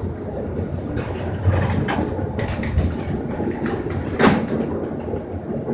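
Metra commuter train car heard from inside its vestibule while rolling: a steady low rumble from wheels on the track, with scattered knocks and rattles, the sharpest about four seconds in.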